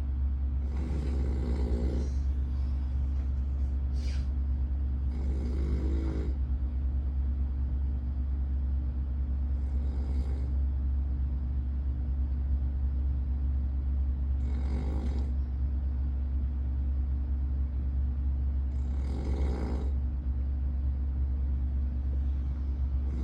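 A sleeping man snoring, one snore about every four and a half seconds, five in all, each lasting about a second, over a steady low hum.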